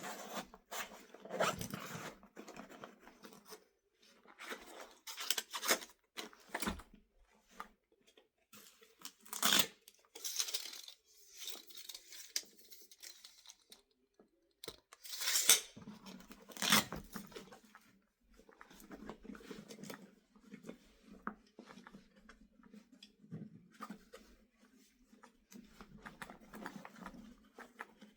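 Hand tools being handled and slipped into the pockets of a fabric tool backpack: rustling and scraping of the bag with light metal clinks, in a series of short bursts, the loudest about a quarter of a minute in.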